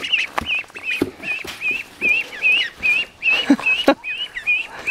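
Domestic ducklings peeping: a steady run of short, high chirps, about four a second, with a few sharp knocks among them.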